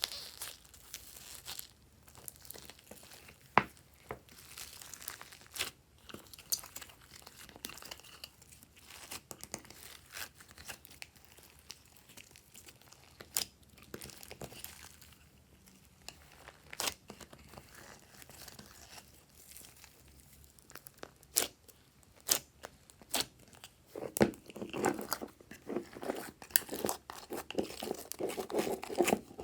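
Glossy slime being kneaded and stretched by hand, with sticky crackling and sharp little pops and clicks as air pockets burst. The sound grows denser and fuller near the end.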